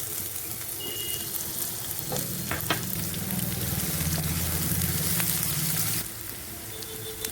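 Chopped onion sizzling and frying in hot oil in a pan, being stirred, with a few sharp knocks about two and a half seconds in. The sizzle drops off near the end.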